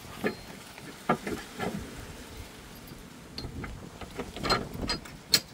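Tow bar hardware being fitted to a car: a handful of short metal clanks and clicks as the arm is seated and pinned, with a sharp click near the end.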